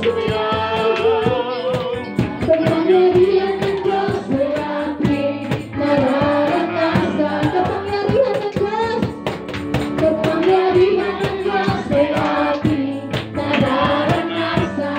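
Worship song: voices singing a melody over instrumental accompaniment with a busy percussion beat.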